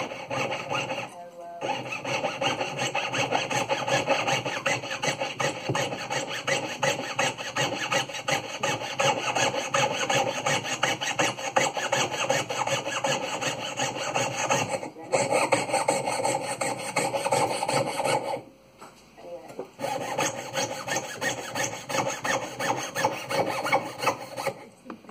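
Jeweller's piercing saw cutting through a silver plate soldered onto a ring's claws, in quick back-and-forth strokes. The sawing stops briefly three times: about a second in, around the middle and for a second or so a little later.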